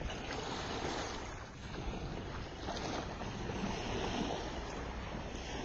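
Small waves washing up onto a sandy shoreline in shallow water, a steady rushing with gentle swells, mixed with wind on the microphone.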